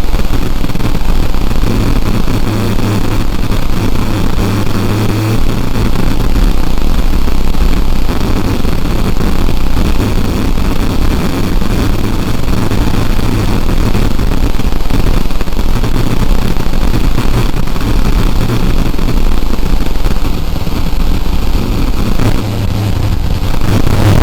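Loud, continuous harsh noise with a strong low hum underneath, filling the whole range with no breaks.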